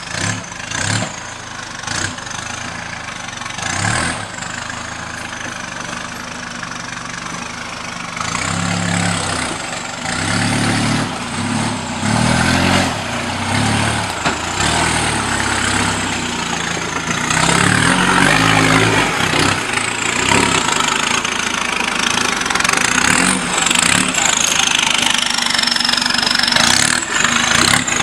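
Off-road 4x4 vehicle engine running and revving in repeated surges, louder in the second half. High-pitched tones rise and fall above it.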